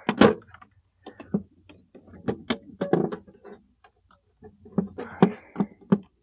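Irregular plastic clicks and knocks from the lid of a solar electric-fence energizer's housing being closed and its latches snapped shut, the loudest click about a quarter second in.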